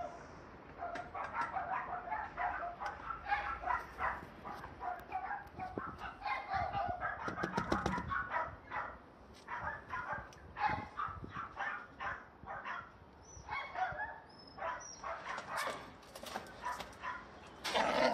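A dog whimpering and yipping in many short cries, one after another, with rustling and clicking throughout and a louder cry at the very end.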